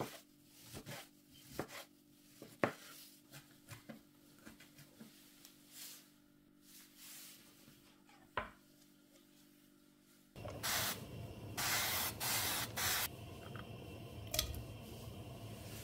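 Chef's knife chopping tomato on a bamboo cutting board: sharp knocks that thin out and space apart, with soft scraping between them and one last knock about eight seconds in. About ten seconds in this gives way to a steady hiss with louder bursts, and a knock near the end as raw prawns are tipped from a glass bowl into a pan.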